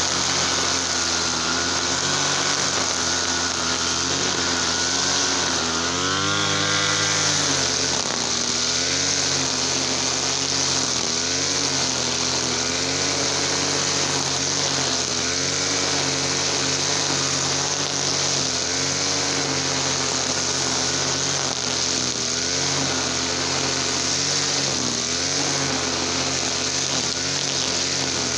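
TL33 two-stroke petrol brush cutter engine running at working speed, its pitch dipping and rising again about six seconds in, then holding fairly steady with small wavers.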